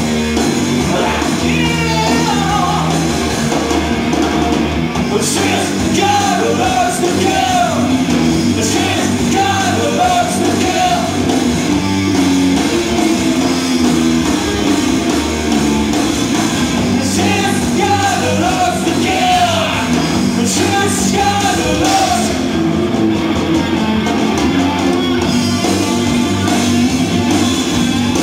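Hard rock band playing live, heard from the audience: distorted electric guitars, bass and drums, with a wavering singing line over the top.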